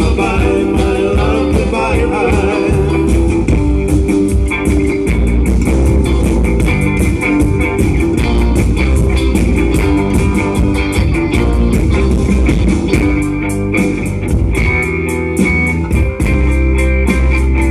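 Live band playing amplified rock and blues: electric guitars and a drum kit through PA speakers, with a steady beat.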